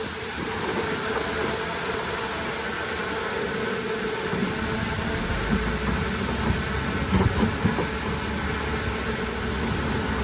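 Heavy earthmoving machinery running, a bulldozer and dump trucks, with steady engine noise. A deeper rumble builds about four seconds in, and a few short clanks come through in the second half.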